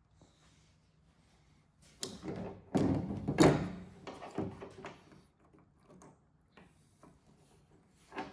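A cluster of clunks and knocks from work on a pickup tailgate, starting about two seconds in and loudest about three and a half seconds in, then a quieter stretch with a short knock near the end.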